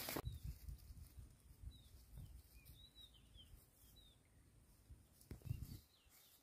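Faint outdoor ambience: a few short, high bird chirps over a low rumble, with one soft knock and thud about five and a half seconds in.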